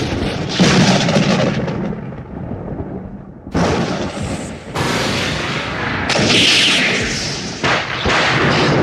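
Loud thunder: a run of sudden lightning cracks, one every second or two, each trailing off into a deep rumble.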